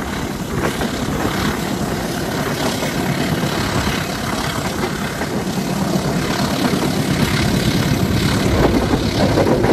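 A CC203 diesel-electric locomotive's engine running steadily with the rumble of the train in motion, growing a little louder near the end.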